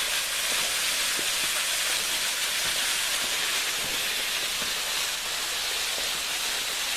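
Waterfall running: a steady, even hiss of falling water that does not change.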